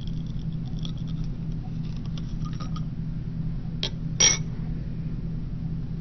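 Steady low room hum with faint scattered ticks, then two sharp clicks about four seconds in, the second a brief glassy clink.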